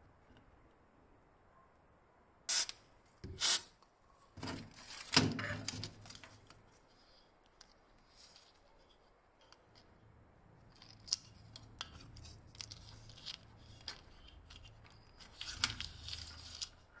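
Two sharp clicks about a second apart, then softer crackling and rustling as a self-adhesive LED strip is handled and pressed into a groove in a wooden board.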